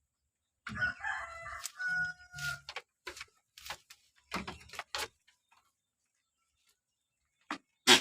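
A rooster crowing for about two seconds, followed by a scatter of short, sharp sounds, with two more near the end.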